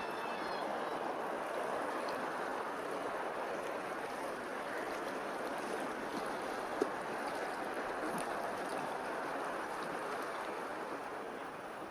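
Steady rushing water noise, with a single sharp tick about seven seconds in.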